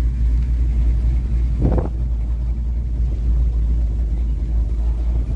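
Car driving along a road, heard from inside: a steady low rumble of engine and road noise. A brief pitched sound comes through about two seconds in.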